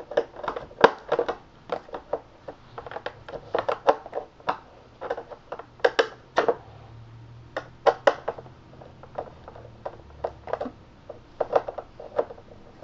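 Irregular sharp clicks and taps of a screwdriver and hands working screws out of the fragile plastic base of a cordless stick vacuum, several clicks a second at times.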